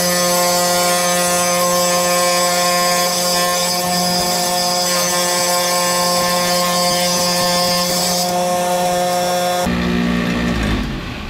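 Ryobi wet tile saw running with a steady whine while its blade cuts through a tile, adding a high grinding hiss that stops about eight seconds in as the cut goes through. Near the end the motor sound shifts and gets quieter.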